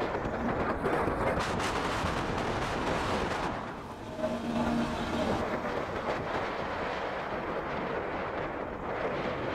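Wind rushing over the microphone of a Honda CB150R motorcycle at road speed, with engine and road noise beneath it. A brief steady tone sounds about four seconds in.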